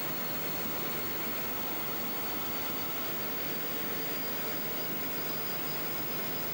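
Steady rushing noise of a loaded ballast hopper train on the move, heard from on top of the wagons: wind mixed with the rolling of the wheels on the rails, with a faint high whine above it.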